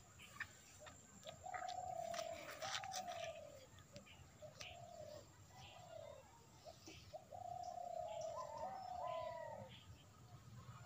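A bird cooing in a run of short notes that mostly fall in pitch, some held longer, with faint chirps of other small birds.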